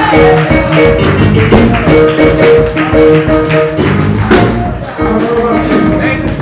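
Loud, fast church praise-break music: a tambourine shaking in quick rhythm over drums and short, repeated keyboard chords.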